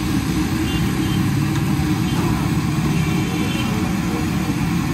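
Steady low roar of high-pressure gas burners under large woks of frying oil, with the hiss of battered fish deep-frying in them.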